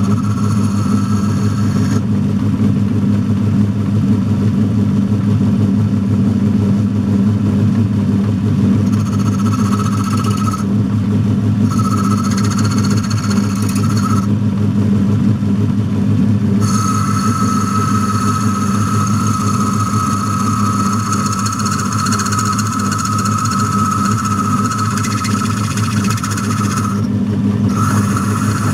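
Century-old metalworking lathe running with a steady low hum while a tool cuts into the bore of the spinning drawbar. A high-pitched whine from the cut comes and goes, then holds for about ten seconds in the second half.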